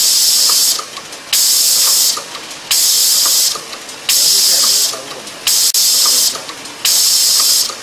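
Eyedrop bottle filling and capping machine running, with a burst of compressed-air hiss about every second and a half, each cut off sharply after under a second. Faint mechanical ticks sound in between.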